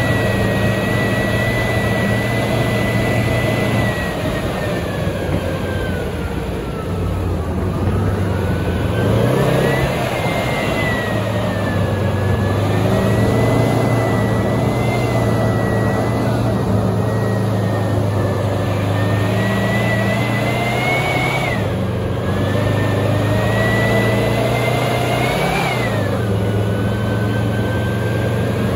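Type 74 tank's air-cooled two-stroke V10 diesel running under way, with a steady low engine note and a high whine over it. The whine falls away about six seconds in, climbs back, and twice in the last third rises and then drops suddenly as the revs fall.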